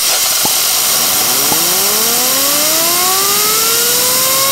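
Compressed shop air hissing from a blow gun into the turbine side of a cutaway turbocharger, spinning the turbine wheel up. The turbine wheel's whine comes in about a second in and climbs steadily in pitch as the wheel gains speed.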